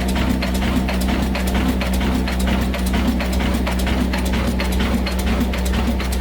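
Old 22 HP diesel 'black engine' running steadily with an atta chakki flour mill, a low steady hum under an even mechanical clatter of about five or six clicks a second.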